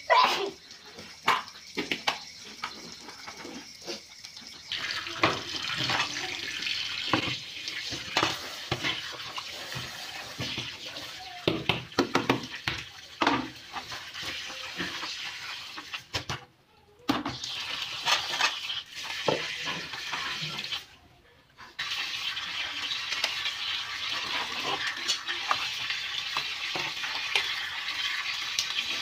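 Water running from a tap over dishes being rinsed by hand. Plastic and metal bowls, a colander and utensils clink and knock against each other. The stream starts about five seconds in and cuts out briefly twice.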